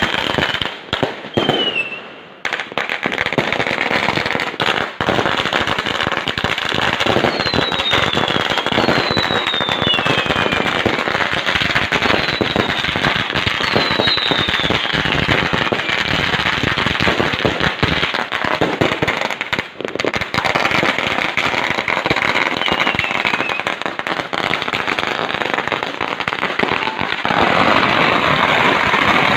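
Fireworks crackling in a dense, rapid stream of sharp pops, with several short falling whistles. There are brief lulls about two seconds in and again about two-thirds of the way through.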